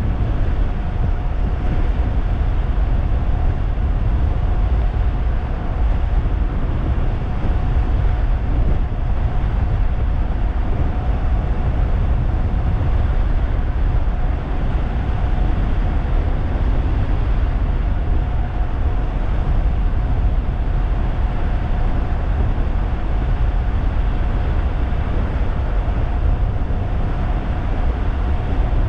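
Heavy wind rumble on the microphone from riding a 3000-watt DIY e-bike at speed, with the electric motor's thin, steady whine held at one pitch as the bike cruises at constant speed.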